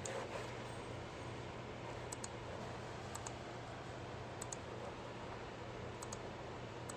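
A few sparse clicks of a computer mouse, mostly in quick pairs about a second or more apart, over a steady low hum.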